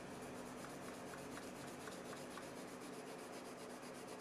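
Faint, steady scratching of a Prismacolor colored pencil rubbed back and forth on paper, laying a new layer of color over an existing one to blend the colors.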